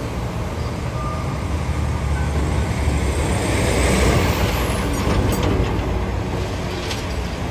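Heavy truck hauling a steel roll-off dumpster drives past close by. Its low rumble swells to a peak about halfway through and then eases off, with a few sharp knocks just after it passes.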